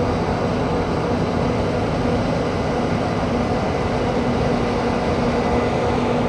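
Steady mechanical drone of running machinery, an even rumble with a constant low hum and a few fixed tones.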